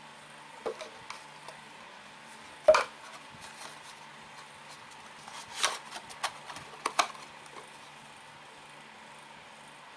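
Handling noise of a cardboard box and the Xiaomi Mi Band inside it: scattered taps and knocks of the packaging and strap, the loudest about three seconds in and a cluster of clicks around six to seven seconds, over a faint steady hum.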